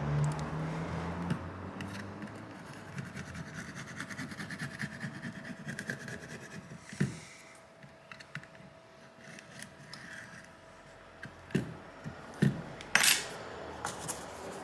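A small tool scraping leftover glass shards and adhesive off a phone's frame: a run of fine, rapid scratchy clicks, then a few separate sharp taps and knocks, the loudest near the end.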